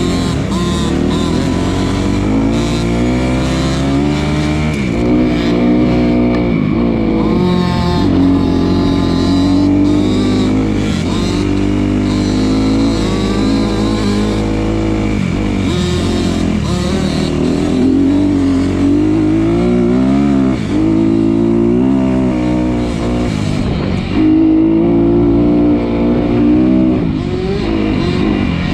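Off-road vehicle engine running close up, its pitch climbing and dropping again and again as the throttle is opened and eased off.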